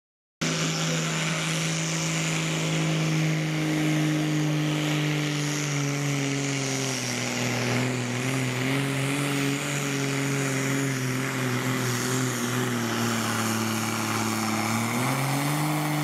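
Modified pulling tractor's diesel engine running flat out as it drags a weighted pulling sled down the track. Its pitch sags steadily as the load builds through the middle of the pull and rises again shortly before the end.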